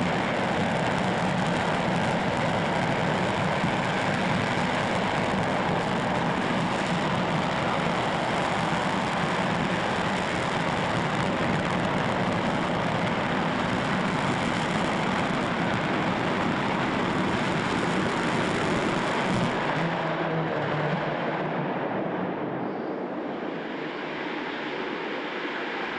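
Aerojet AJ26 liquid-fuelled rocket engine firing on a static test stand: a loud, steady roar that cuts down at engine shutdown about 20 seconds in, leaving a quieter, duller rushing noise.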